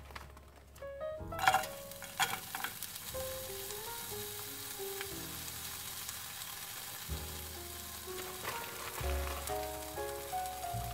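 Sliced green onions sizzling in hot oil in a frying pan. The sizzle starts suddenly about a second and a half in, with a few clicks as they hit the pan, then holds steady.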